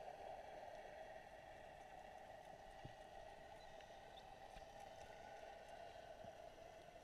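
Near silence: a faint, steady underwater hiss with a few faint clicks.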